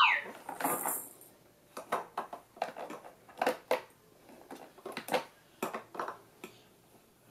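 Hands slapping and tapping the hard plastic button panel of a Little Tikes 3-in-1 activity walker: irregular knocks and clacks, a dozen or so spread unevenly, some in quick pairs. It opens with a short falling tone as the panel lights up.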